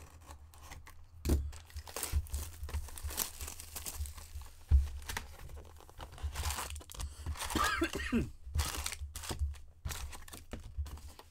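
A hobby box of Upper Deck hockey cards being opened by hand: its wrapping and the card packs' wrappers tearing and crinkling in irregular spurts. There are a few dull thumps of handling, the strongest a little under five seconds in.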